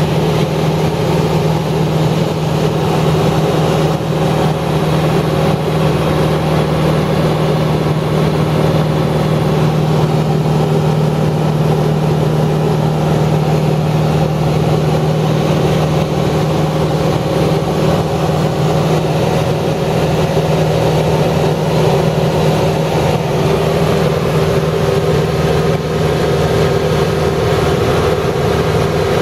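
A motor running steadily: a constant low drone with no change in pitch or level.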